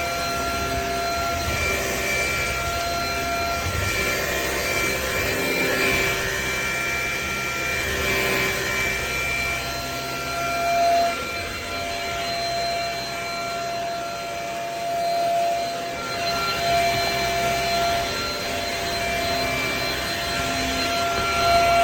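Shark Rocket corded stick vacuum running, a steady motor whine over a rush of suction, getting louder and quieter a few times as it works.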